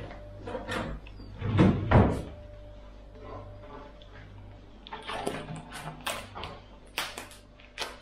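A kitchen drawer opened and pushed shut with a knock, then a run of sharp clicks and scrapes as a plastic end cap is pried off a cardboard shipping tube with a knife.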